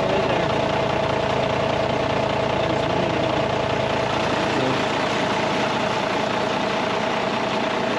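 Semi truck's diesel engine idling steadily, heard up close in the open engine bay, with a steady whine running over it. It runs with its new fan and fan clutch in place.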